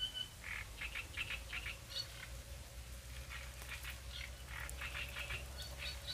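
Short, harsh animal calls repeated in quick runs, going on throughout, over a faint steady low hum.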